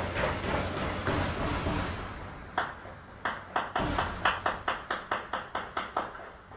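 Celebratory gunfire into the air heard from indoors: at first a dense crackle of many overlapping shots, then from about two and a half seconds in a run of single sharp shots, about three or four a second, growing fainter toward the end.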